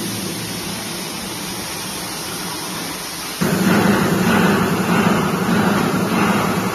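Steady rushing background noise with a low rumble, which gets suddenly louder about three and a half seconds in.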